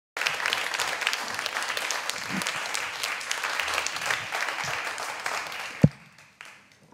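Studio audience applauding: a dense clatter of many hands clapping that starts abruptly, holds steady, then dies away about six seconds in. A single low thump stands out just before the clapping fades.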